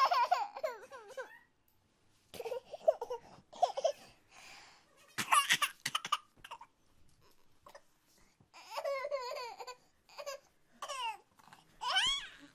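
A baby's high-pitched babbling and squeals come in about half a dozen short bursts of gliding pitch, with quiet gaps between.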